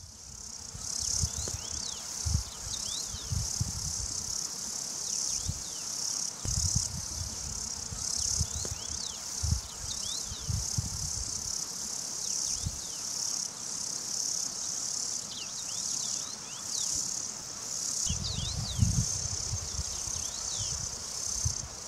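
Grasshoppers stridulating in a mountain meadow: a steady, high-pitched, pulsing chirr. Bouts of low rumbling come and go underneath.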